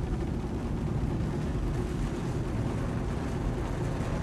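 Steady low rumble of a volcanic eruption, a continuous deep noise without breaks.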